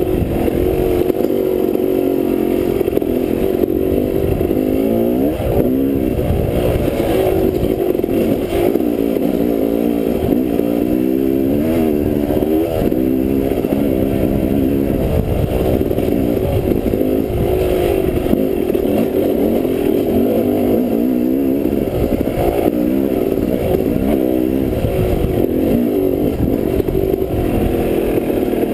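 Dirt bike engine being ridden on a rough single-track trail, its pitch rising and falling over and over as the throttle is worked through the turns and bumps.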